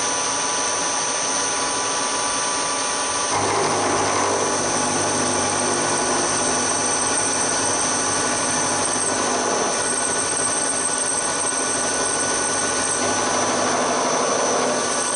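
Hafco HM 54GV milling machine running with a steady whine. About three seconds in the sound grows louder and rougher, and a low hum joins it.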